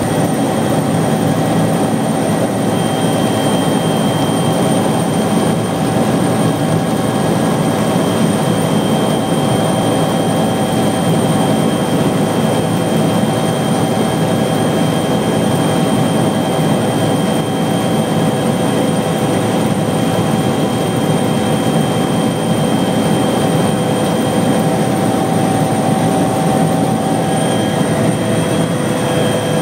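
Helicopter in flight heard from inside the cockpit: a loud, steady engine and rotor drone with several constant high whines running over it.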